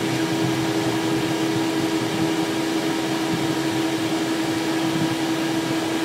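Steady cockpit noise of a Cessna Citation Excel taxiing with its twin turbofans at idle: an even hum with a constant mid-pitched drone.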